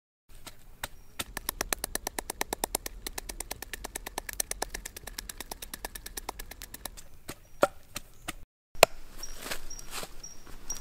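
Wooden pestle pounding red chillies and garlic in a wooden mortar: a fast, even run of knocks for several seconds, then a few separate strikes, one of them loud.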